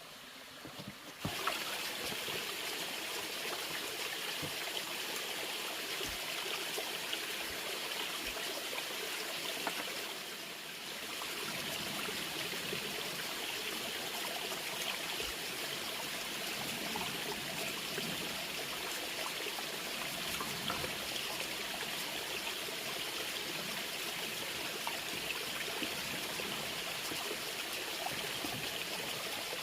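Flowing water, a steady trickling rush like a small stream, coming in abruptly about a second in with a brief softer dip partway through.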